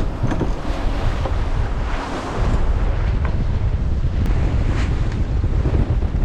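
Strong wind buffeting the microphone over waves washing past a sailboat under way.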